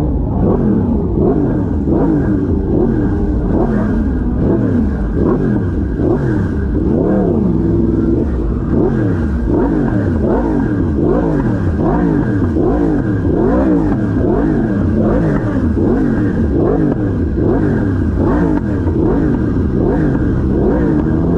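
Sport bike engine revving up and down over and over in short throttle blips at low road speed, the pitch rising and falling about once a second.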